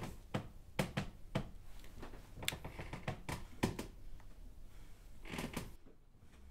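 A series of sharp, irregular clicks and knocks, about a dozen spread over four seconds, then a brief rustle.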